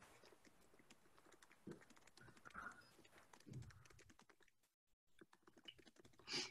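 Near silence: faint room tone with soft scattered clicks.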